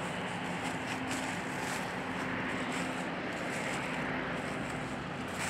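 Steady road traffic noise, with a faint engine hum running through it that steps up in pitch about half a second in and fades out late.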